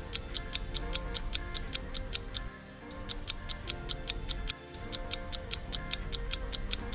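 Countdown timer sound effect ticking quickly, about four ticks a second, over light background music, marking the time to answer a quiz question. The ticking breaks off briefly twice.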